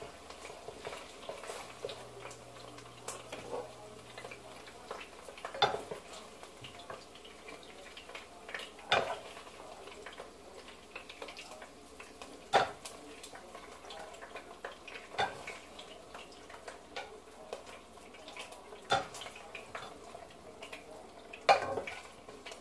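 Kitchen utensils clinking and clacking against pans and dishes, a sharp clack every few seconds with light handling noise in between, as cooked chicken wings are taken out and moved.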